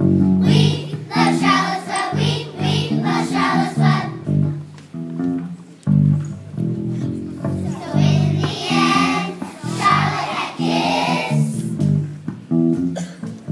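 A children's choir singing a song together over instrumental accompaniment with a guitar-like sound, in sung phrases separated by short pauses.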